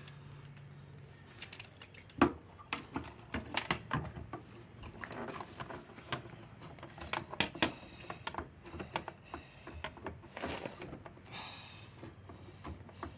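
Irregular clicks and taps of a long-reach lockout tool being worked inside a truck cab, knocking against the door trim and lock parts, starting about a second and a half in.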